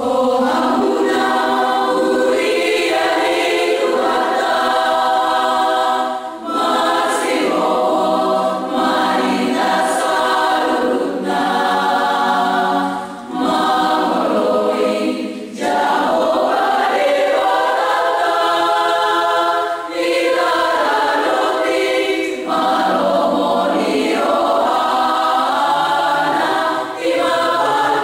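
A choir of young women singing together unaccompanied, in long held phrases with brief pauses for breath between them.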